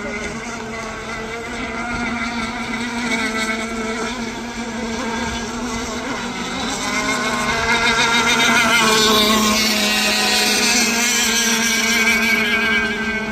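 RC race boat's motor running at speed on the water, a steady pitched drone that grows louder past the halfway point as the boat comes closer.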